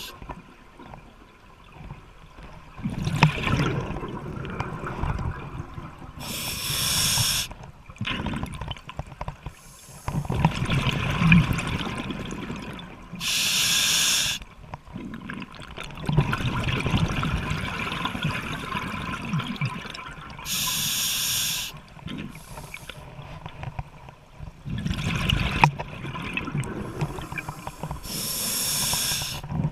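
Scuba diver breathing through a regulator underwater: a short hissing inhalation about every seven seconds, four times, each followed by a long gurgle of exhaled bubbles.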